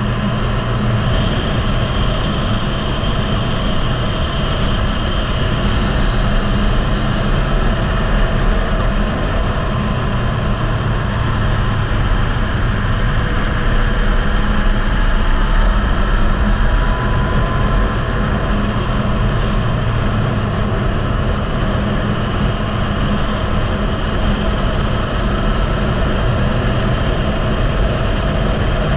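Yamaha MT-09's inline-three engine running steadily at track speed, heard through heavy wind noise on an onboard microphone.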